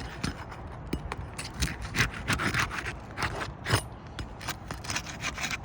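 Irregular scraping and rubbing strokes on asphalt roof shingles as a wind-damaged shingle is worked loose for removal.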